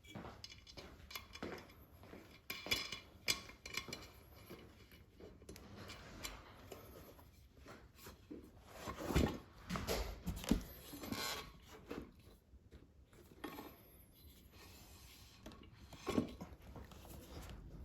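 Hands working a tire and inner tube onto a wheel rim: scattered light knocks, clicks and rubbing, busiest about halfway through.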